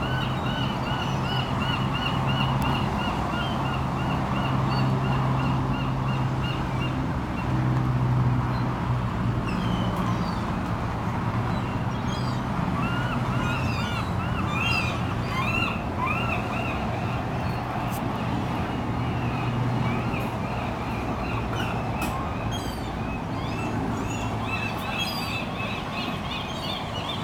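A flock of gulls calling, long runs of short, quickly repeated calls that come and go, over a steady low hum of an engine running.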